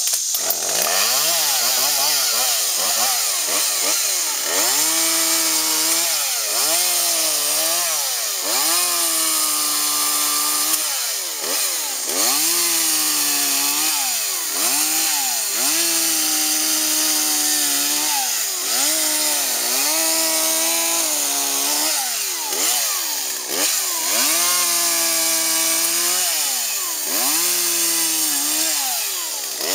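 Chainsaw running and cutting through tree limbs, its pitch dropping as the chain bites and rising again as it frees, over and over about every one to two seconds.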